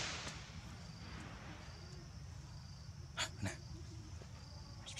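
Insects trilling in the forest undergrowth, a thin high tone that comes and goes, over a steady low rumble. A brief rustle at the start and two short sharp sounds a little over three seconds in.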